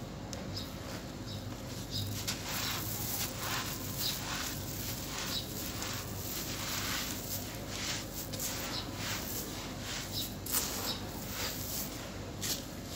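Dry, gritty sand-cement crumbs being scooped, squeezed and dropped by hand: an irregular rustling crunch, with grains pattering down as they fall.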